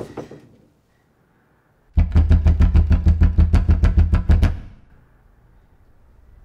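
A loud, rapid run of heavy, booming percussive hits in a horror film's soundtrack, about six a second. It starts suddenly after a short silence and cuts off after about two and a half seconds, leaving a faint low hum.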